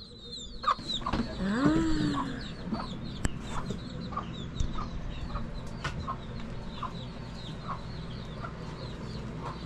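Chickens clucking, with scattered short calls and one longer drawn-out call about two seconds in.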